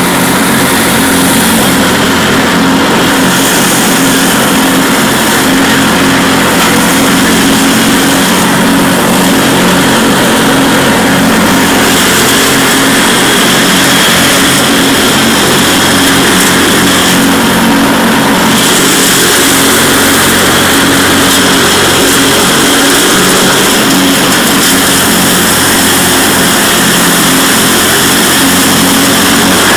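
Cub Cadet 1046 lawn tractor running steadily under load with its mower deck going through dry fallen leaves: an even engine drone with a constant rush of noise over it.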